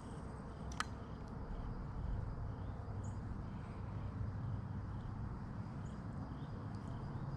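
Steady low wind rumble on the microphone of a head-mounted camera outdoors, with faint high chirps and a single sharp click about a second in.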